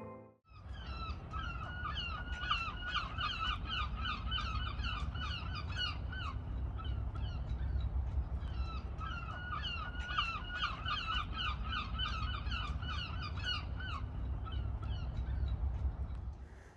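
A bird calling in two long bouts of rapid, repeated short notes, each bout ending on a longer falling note, over a steady low wind rumble.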